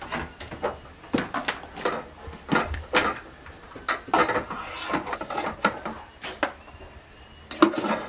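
Irregular clicks, taps and scrapes of a rice paddle against an electric rice cooker's inner pot and a plastic plate as rice is dished out.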